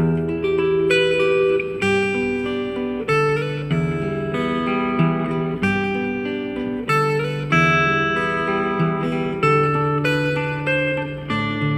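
Acoustic guitar accompaniment playing plucked and strummed chords at a steady, moderate pace, each note ringing and fading.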